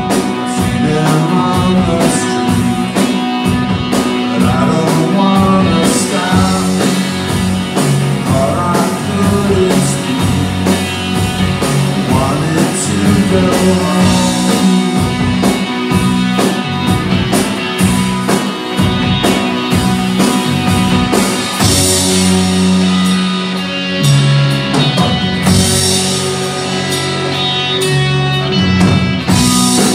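A rock band playing live on stage: guitars, bass and a drum kit with keyboard, with a steady drumbeat.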